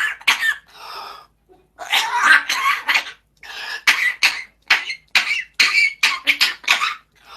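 Pet parrot imitating a person's cough: a long run of short coughs, one after another, with brief pauses.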